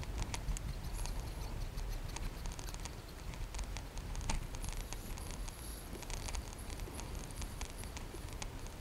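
Water lapping and dripping against a plastic kayak hull, with irregular small clicks and taps, over a steady low rumble of wind on the microphone.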